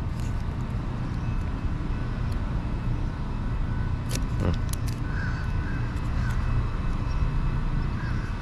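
Steady low outdoor rumble, with a couple of sharp clicks about four seconds in and a few short high chirps in the second half.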